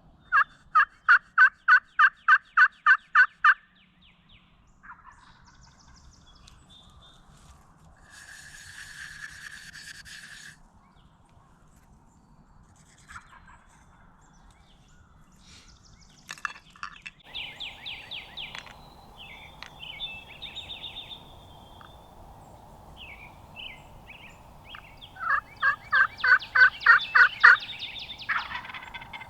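Wild turkey calls: a loud run of about a dozen evenly spaced yelps at the start, and another near the end, with quieter scattered calls and a short raspy call between them.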